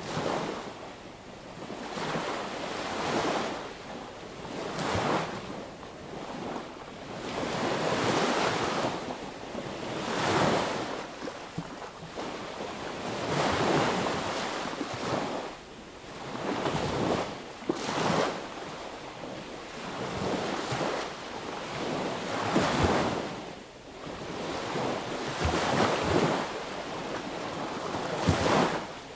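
Sea waves breaking and washing up a beach, each swell of surf rising and falling back about every two to three seconds.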